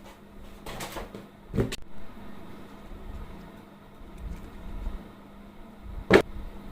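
Silicone pop-it fidget toy bubbles being pressed, giving a couple of short pops between one and two seconds in and a single louder pop near the end, over a faint steady hum.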